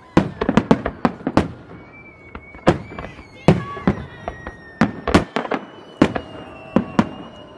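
Aerial firework shells bursting in a rapid, irregular string of sharp bangs, some overlapping, the loudest about three and a half seconds in. Thin high whistling tones sound faintly between the bangs.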